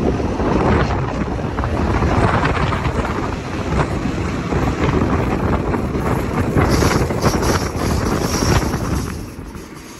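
Wind buffeting the microphone held out of the open window of a moving RBDe 4/4 electric railcar, over the train's running noise on the track; the buffeting eases near the end.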